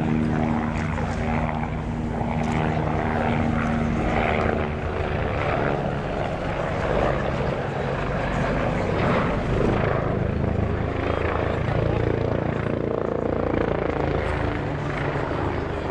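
Agusta A109BA twin-engine helicopter in display flight: steady rotor chop under a turbine whine, with the pitch of the engine tones shifting about four and a half seconds in.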